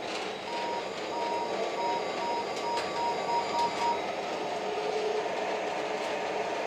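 O gauge model locomotive sound system running steadily, with a string of short evenly spaced beeps, about three a second, from about half a second in to about four seconds in.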